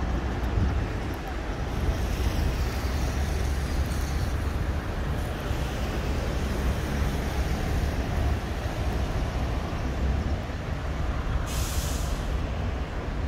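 Road traffic going by: a steady low rumble of passing vehicles, with a sharp hiss for about a second near the end.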